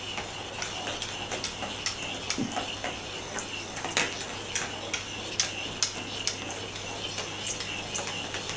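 Battery-powered rolling ball toy running across a ceramic tile floor. The hard plastic ball gives irregular clicks and ticks, several a second, over a steady high whine from the small motor spinning its internal weight.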